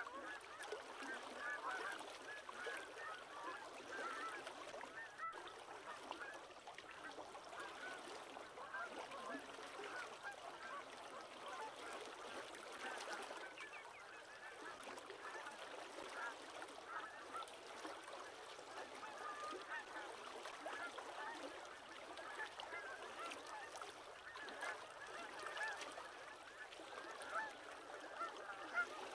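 A large flock of waterbirds calling all at once, a dense, unbroken chatter of many overlapping calls.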